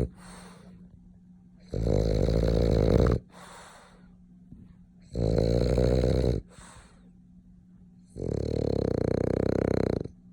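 French bulldog snoring: three long, loud snores about three seconds apart, each followed by a brief, softer breath.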